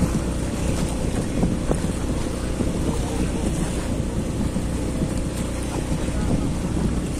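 Steady engine drone on a basnig outrigger fishing boat, with water splashing and sloshing at the hull as the net is hauled in.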